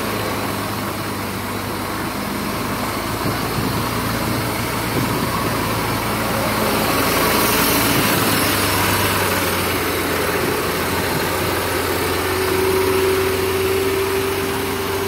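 Heavy truck's diesel engine idling steadily, heard up close beside the tractor head. A higher steady hum joins in about twelve seconds in.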